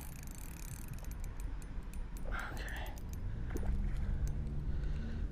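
Fishing reel clicking faintly in quick, irregular ticks while a big carp is played on light line, over a low rumble. About two-thirds of the way in, steady low background music comes in.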